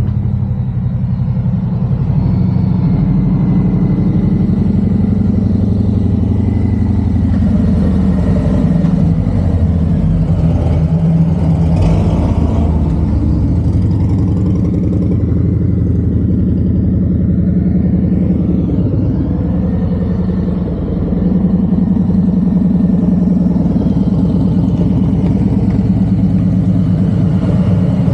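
Harley-Davidson FXDRS 114's Milwaukee-Eight V-twin running at low speed through a Two Brothers Comp-S 2-into-1 exhaust, echoing off the concrete walls of an underpass as the bike approaches and rolls in. A brief swell comes about twelve seconds in.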